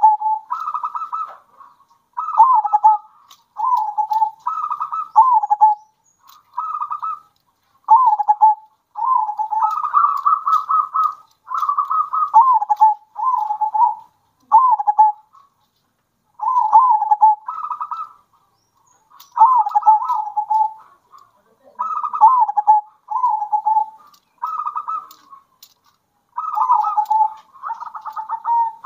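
Zebra doves (perkutut) cooing in their fast, rhythmic song. Phrase follows phrase every second or two, each a quick trilled burst with falling coos.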